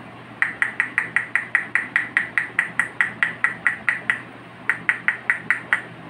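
A rose-ringed parakeet pecking and pushing a small plastic cup on a hard stone floor, making rapid, even taps about five a second. The taps pause briefly about four seconds in, then resume.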